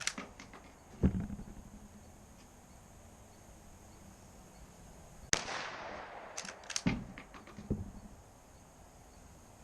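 A single gunshot about five seconds in, a sharp crack with a trailing echo. Several quick clicks follow, and there are dull knocks about a second in and near the end.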